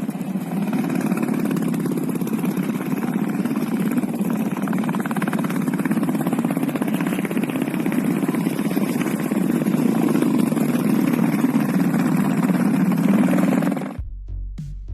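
Royal Enfield Bullet single-cylinder motorcycle engine running steadily with its exhaust note. It cuts off suddenly near the end, and electronic music with a steady beat takes over.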